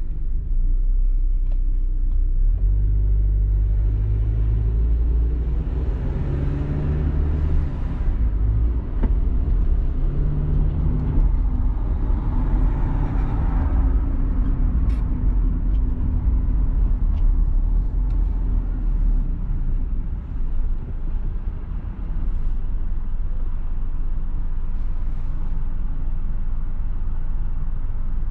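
Car driving in city traffic, heard from inside the cabin: a steady low rumble of engine and tyres as the car pulls away from a stop and rolls along the street. The road noise swells twice, about a quarter and about halfway in.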